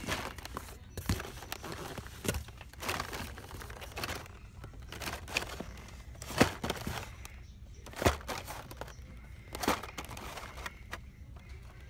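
Carded Hot Wheels cars being flipped through in a cardboard case: plastic blisters and card backs crinkling and rubbing, with irregular clacks as the cards knock together. The loudest clacks come about six and eight seconds in.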